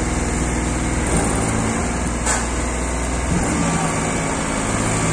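Combine harvester's diesel engine running under load while stuck in mud. Its pitch shifts about a second in and again a little past three seconds, and there is one short sharp click near the middle.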